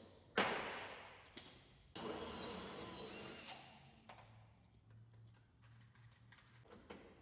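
Hand pop-riveting steel cladding sheets. A sharp metallic crack comes about half a second in, then about a second and a half of rattling, ringing sheet metal, followed by scattered light clicks.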